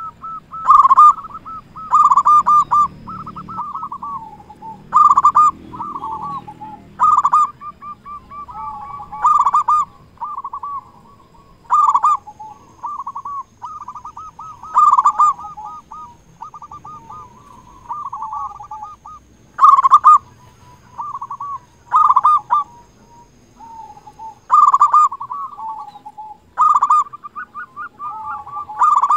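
Zebra dove (perkutut) singing actively: repeated cooing phrases about every two to three seconds, each opening with a loud note and trailing off into a quick stuttering run of softer coos.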